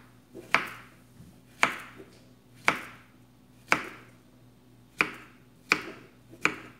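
Kitchen knife slicing a peeled banana, each cut ending in a sharp tap of the blade on the cutting board: seven cuts, about one a second.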